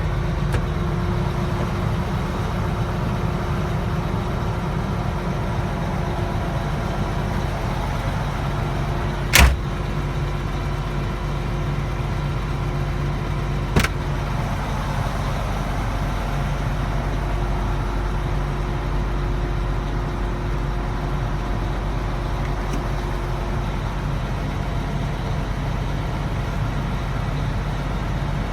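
MAN TGA 26.480 truck's diesel engine idling steadily. Two sharp knocks cut through, the louder about a third of the way in and a softer one about five seconds later.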